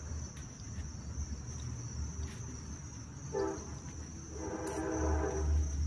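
Insects trilling steadily at one high pitch, with a low rumble of wind on the microphone that grows louder near the end. A short pitched sound comes about three seconds in, and a longer one follows about a second later.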